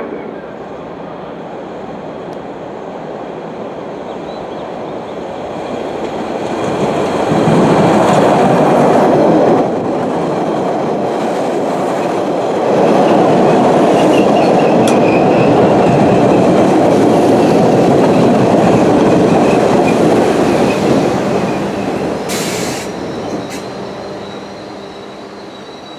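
MBTA Orange Line subway train passing close by: it rises from a distance, runs by loudly with clattering wheels and a faint high wheel squeal in the middle of the pass, then fades away near the end.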